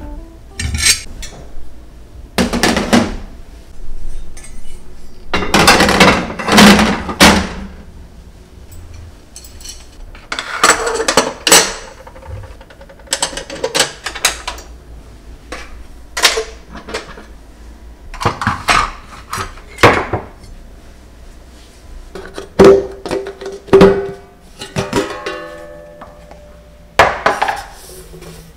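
A series of irregular metallic clinks and knocks from metal kitchenware being handled and set down, such as gas burner caps on a stainless hob, some ringing briefly, over background music.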